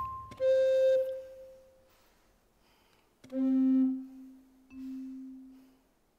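Sparse held notes from a contemporary chamber ensemble, separated by silences: one note about half a second in, then a note an octave lower twice, the second time softer.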